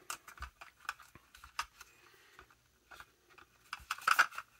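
Plastic toy-vehicle parts being handled and slotted together: irregular light clicks and scrapes of plastic on plastic, with a busier, louder run of clicks about four seconds in.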